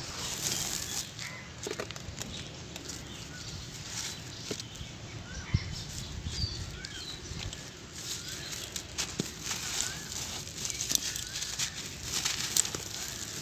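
Dry sand-cement clumps crunching and crumbling in bare hands, with sharp crackles as pieces break and gritty dust pouring and pattering down.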